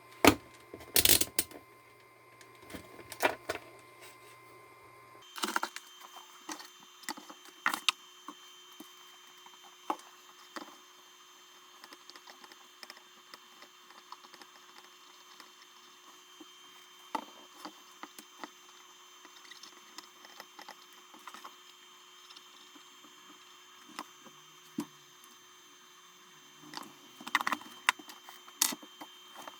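Irregular clicks, taps and knocks of hard objects being handled, with louder clusters in the first few seconds and again near the end, over a faint steady hum.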